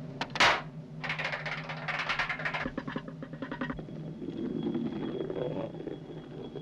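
Cartoon sound effects of a small object tumbling off a roof: a sudden swish about half a second in, a quick run of rattling clatter as it goes down the drainpipe, then a low rolling rumble as it rolls across wooden porch boards.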